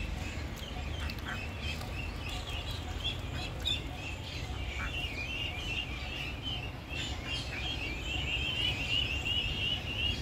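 A brood of ducklings peeping continuously: many short, high chirps overlapping, growing denser and louder near the end.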